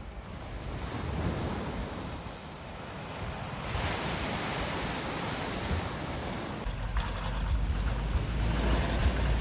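Sea waves washing onto the shore, one surge rising about four seconds in. From about two-thirds of the way through, wind buffets the microphone with a low rumble.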